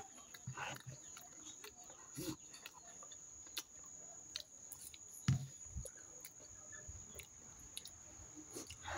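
Faint chewing and gnawing on meat off a bone, with scattered soft clicks and one louder knock about five seconds in.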